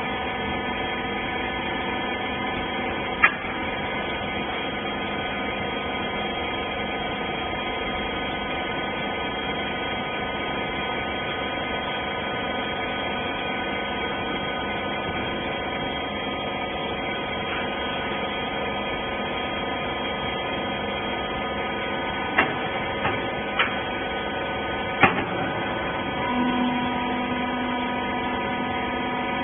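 Hydraulic cloth baler running with a steady hum. There is a sharp click about three seconds in and a cluster of four clicks or knocks later on, and near the end a new steady tone joins the hum.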